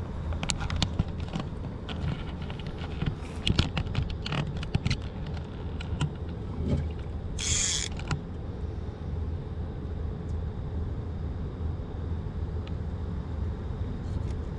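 Rod-and-reel fishing gear being handled on a boat: scattered clicks and knocks over a steady low hum, with a brief hiss about seven and a half seconds in.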